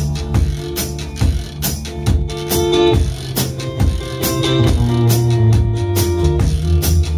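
Live rock band playing an instrumental passage with no singing: electric guitars over a regular drum-kit beat.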